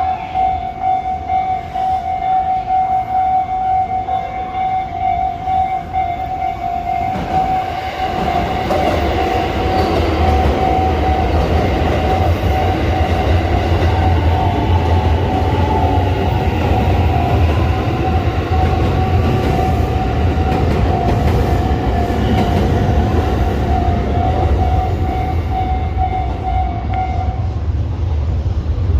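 Japanese level-crossing warning bell ringing steadily as a Kansai Airport limited express train passes over the tracks, its rumble and rail noise building about eight seconds in and staying loud. The bell stops shortly before the end.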